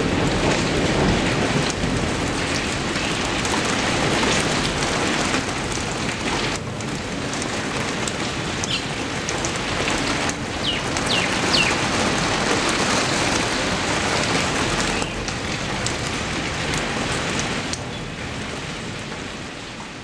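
Steady heavy rain falling on foliage, a dense even hiss with a few brief high chirps about nine to eleven seconds in. It grows a little softer near the end.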